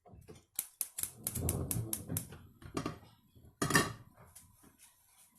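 Gas stove burner being lit: a quick run of igniter clicks, with a louder knock a little later.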